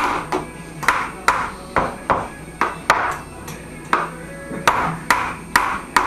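A baby's hand banging on a metal pan over and over, about two knocks a second, each with a short metallic ring.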